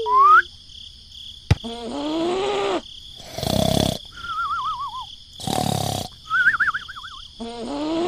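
Cartoon snoring sound effect: a drawn-in snore that rises and falls, a short snort, then a thin wavering whistle on the breath out, going through the cycle twice. Steady high cricket chirring sits underneath.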